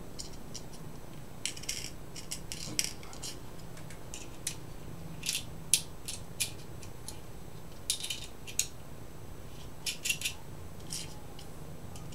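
Small metal hex nuts clicking and clinking in irregular light ticks as they are picked up and fitted onto the jack and potentiometer threads of a Eurorack module's faceplate.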